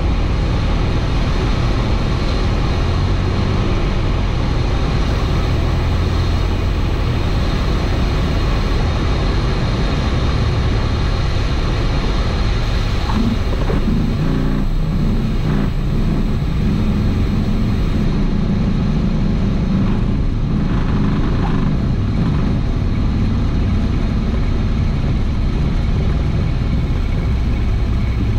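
Cessna 172 cabin noise: the piston engine and propeller droning steadily with rushing air. About halfway through the sound changes to a steadier, lower engine drone as the plane rolls along the runway after landing.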